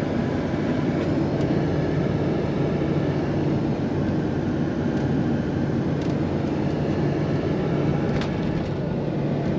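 Vehicle driving on the road, heard from inside the cab: a steady engine hum over even tyre and road noise.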